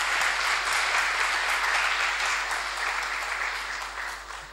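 Audience applauding, the applause dying away near the end.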